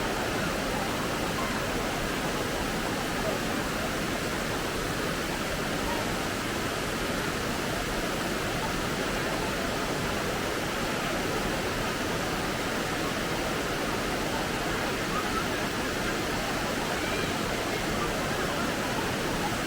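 Steady rushing of falling water from a waterfall or stream, an even, unbroken roar.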